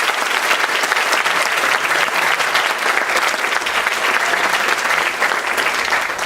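Theatre audience applauding steadily after a sung number, a dense, even clapping.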